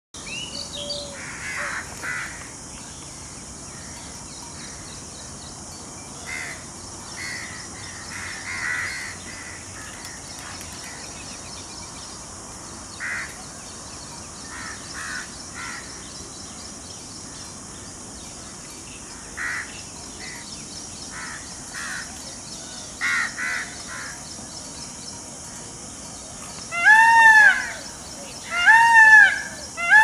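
Scattered short bird calls over a steady high hiss, then near the end a series of loud, harsh peacock calls from an Indian peafowl, each call rising and falling in pitch, repeated in quick succession.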